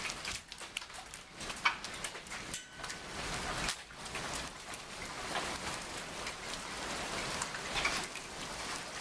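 Hail pelting down: a steady hiss of many small hits, with frequent sharp, separate cracks from larger stones striking hard surfaces.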